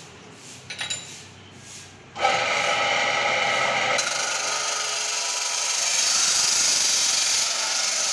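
Abrasive cut-off chop saw grinding through a metal tube. After a few light clicks, the spinning abrasive wheel bites into the metal about two seconds in with a sudden loud, steady grinding screech that lasts about six seconds and grows brighter as the cut deepens, then cuts off at the very end.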